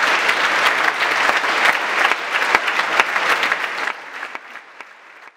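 Audience applause in a concert hall: dense clapping that thins out about four seconds in and quickly dies away.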